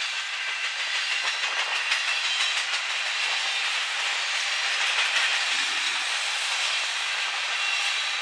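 A freight train's covered hopper cars rolling past on the rails: a steady rush of steel wheels on track with faint, frequent clicking.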